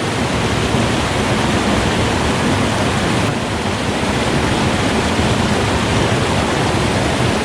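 Small stream pouring over a little waterfall: a steady, even rush of water.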